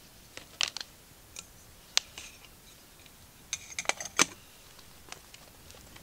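Twig fire in a small stove crackling, with scattered sharp pops and a quick cluster of them a little after three and a half seconds, the loudest just past four seconds.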